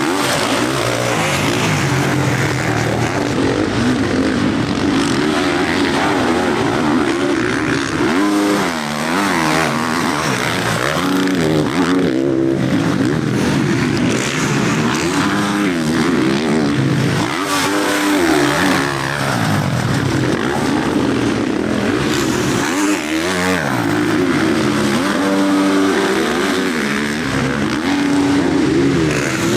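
Several motocross bikes racing, their engines revving up and down as riders accelerate, shift and back off, the rising and falling engine notes overlapping throughout.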